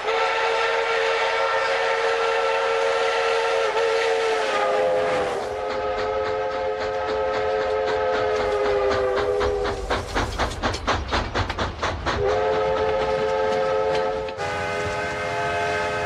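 Steam locomotive whistle sounding a chord of several notes in long blasts. About ten seconds in the whistle stops for two seconds of rapid rhythmic beats from the moving train, about five a second, then blows again.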